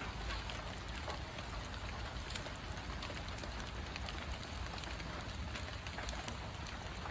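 Light rain falling: a steady patter with scattered drop ticks, over a steady low rumble.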